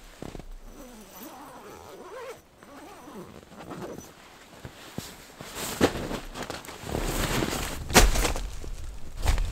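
Rustling and scraping of nylon tent fabric and a padded sleeping bag, with crunching steps in snow, while a person crawls into a small tent. A few louder scuffs come in the second half.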